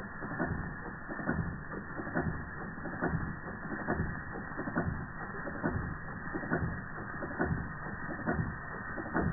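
Antique Georges Carette Model 175 twin oscillating-cylinder toy steam engine running with a steady rhythmic clatter: a stronger knock about once a second with lighter clicks in between.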